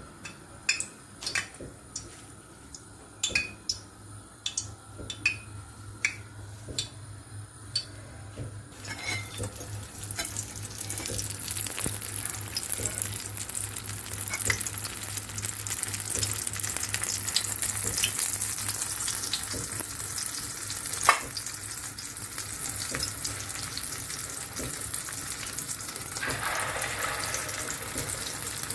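Light clinks, a few to the second, for the first third. Then hot sunflower oil sizzles steadily as egg-coated shami kebab patties shallow-fry in a pan, with one sharp pop about two-thirds through.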